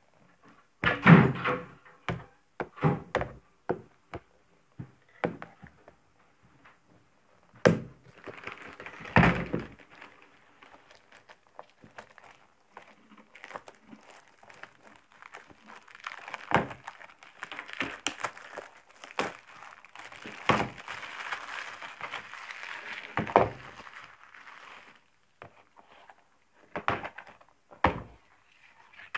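Scissors and a plastic DVD case being handled on a wooden table: scattered sharp knocks and thunks as they are set down and bumped. Long stretches of crinkling come from the plastic wrap as it is cut and peeled off.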